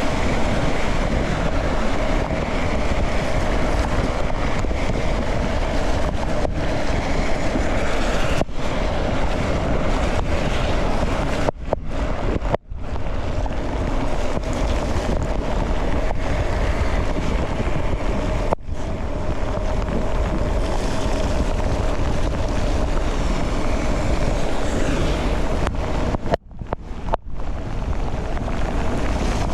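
Wind rushing over a helmet camera's microphone as a mountain bike descends at speed in heavy rain, a loud steady roar broken by a few short dropouts.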